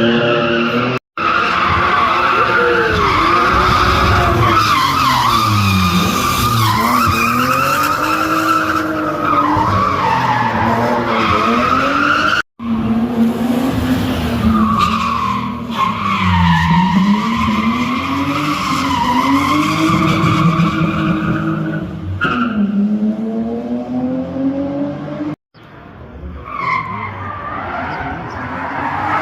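A car engine revving up and down over and over while its tyres squeal continuously, as in a drifting or donut display. The sound drops out abruptly three times: about a second in, near the middle, and near the end.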